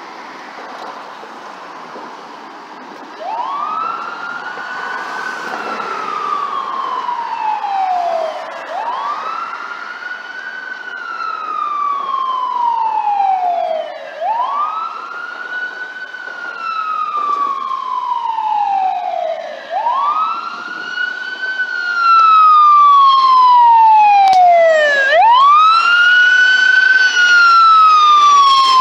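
Los Angeles Fire Department tiller ladder truck's siren wailing as it responds to a call. There are five slow wails about every five and a half seconds, each rising quickly and then falling slowly. The first starts about three seconds in, and the wails get louder near the end as the truck passes close by.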